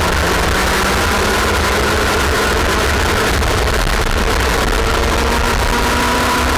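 A Junior X30 kart's IAME X30 125cc two-stroke engine running hard at racing speed, picked up by a camera mounted on the kart. The sound is loud and steady, buried under a heavy rush of noise.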